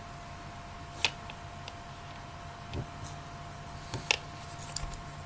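Scattered light clicks and ticks of small metal parts being handled as a wire lead is fitted into a small wrapped heating coil, two sharper ones about a second in and about four seconds in, over a steady faint hum.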